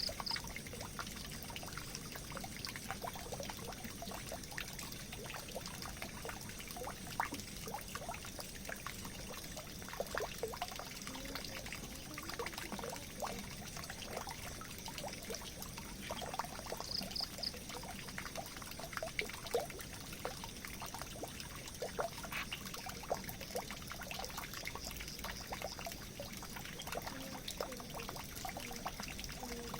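Water running into a drain, a steady trickling pour with frequent small drips and gurgles.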